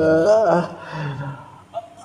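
A person's drawn-out voice with a wavering pitch for about half a second, then a brief low murmur.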